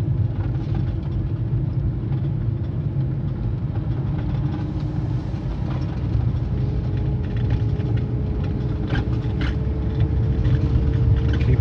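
Car engine and tyre road noise heard from inside the cabin while driving: a steady low rumble, with a faint tone that slowly climbs in pitch from about halfway through and a couple of light ticks late on.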